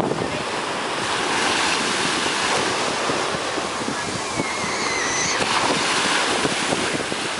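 Ocean surf breaking and washing up a sandy beach in shallow water: a steady rush of waves.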